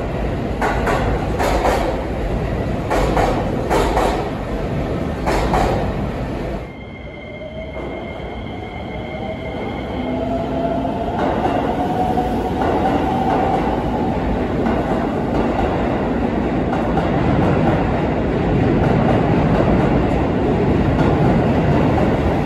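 Train cars clattering past over the rail joints, cutting off sharply about seven seconds in as the train clears. Then another train pulls away: a slowly rising motor whine, a brief high wheel squeal, and running noise that builds toward the end.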